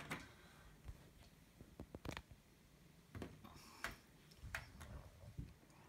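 Faint, irregular clicks from a front-loading washing machine's control panel as its buttons are pressed and its programme dial is turned through its settings.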